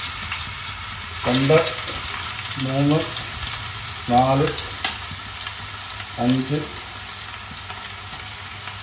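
Crushed garlic sizzling in hot coconut oil as it is spooned into a large aluminium pot: a steady frying hiss.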